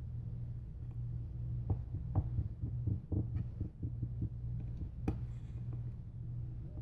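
Small clicks and taps of hands and tools working on a smartphone's frame while fitting adhesive strips, bunched together for a couple of seconds with one more a little later, over a steady low hum.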